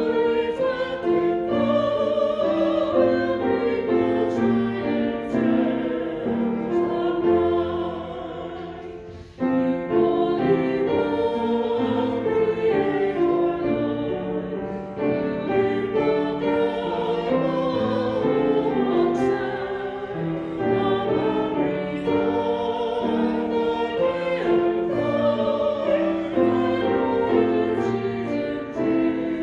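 Choral singing with piano accompaniment in long held notes. The music fades down around seven to nine seconds in, then comes back suddenly.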